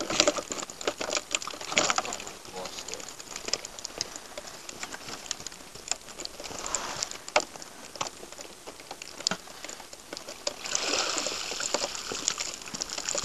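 Freshly caught capelin flapping against the sides of a plastic tub: a scatter of irregular sharp ticks. Near the end, water pours and splashes from a dip net lifted out of the sea.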